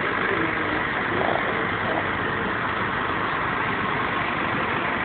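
Steady noise of street traffic, with vehicle engines running close by.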